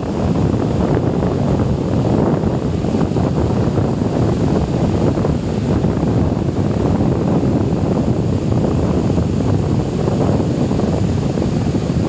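Ocean surf breaking and washing up a sandy beach, a steady rush mixed with wind buffeting the microphone.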